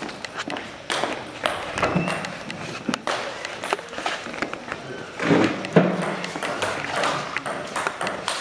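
Irregular sharp clicks of a table tennis ball bouncing on the table and bats, echoing in a large hall, the loudest about halfway through.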